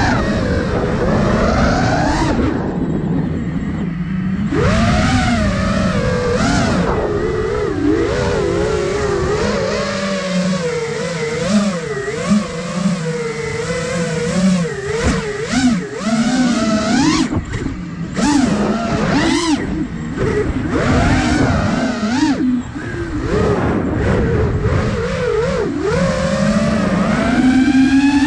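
iFlight Nazgul Evoque F5 5-inch FPV quadcopter's brushless motors and propellers whining, the pitch rising and falling constantly with throttle changes during freestyle flying, heard from the camera mounted on the drone.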